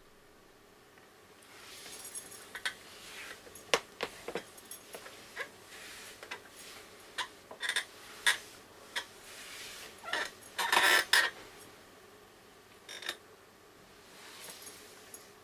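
Scattered light clicks, clinks and rustling from a person shifting on a swivel chair and crossing her legs, with a louder burst of rustling about ten seconds in.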